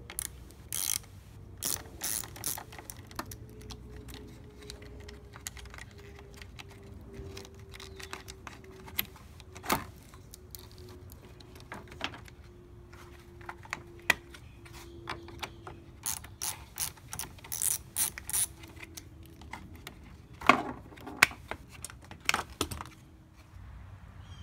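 Small socket ratchet clicking in quick runs as the battery's negative terminal nut is loosened. Several louder knocks come near the end.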